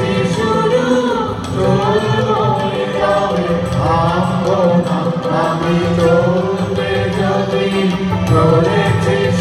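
A mixed group of men and women singing a song together through hand-held microphones, their voices amplified over a sound system.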